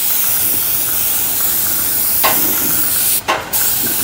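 Air-fed spray gun hissing steadily as it sprays a scooter body panel. The hiss breaks off briefly a little after three seconds in, with a couple of short clicks around it.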